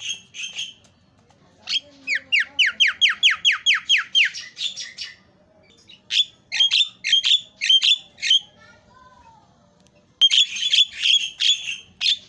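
Javan myna (jalak kebo) calling: a fast run of about a dozen sharp whistles, each sliding downward, then two spells of short, harsh chattering notes with brief pauses between.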